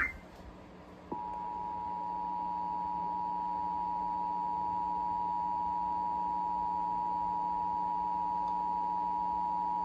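Emergency Alert System attention signal: two steady tones sounded together as one harsh alarm, starting about a second in, holding level for nearly nine seconds and cutting off abruptly near the end. It heralds a Required Monthly Test of the alert system.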